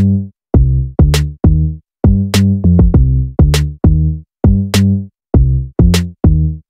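Electronic music with a drum-machine beat: short, punchy bass notes and sharp percussive hits, about two to three a second.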